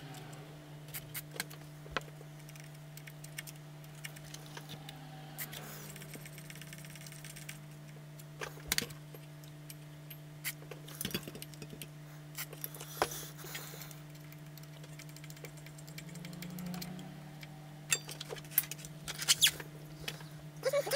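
Contact cleaner sprayed from an aerosol can through its thin straw into the radio amplifier's dried-out potentiometers, heard as a couple of short hisses about six and thirteen seconds in. Light clicks and taps of handling around the chassis come and go throughout, over a faint steady hum.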